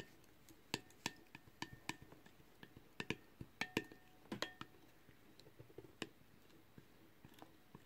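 A plastic spoon stirring runny slime mixture in a glass bowl, knocking against the glass in light, irregular clinks, several a second. Some clinks leave a brief ring of the glass. The clinks are thickest in the first half and thin out later.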